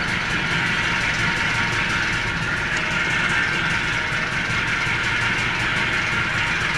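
Vintage Vespa scooter's single-cylinder two-stroke engine idling steadily, freshly started from cold on the choke.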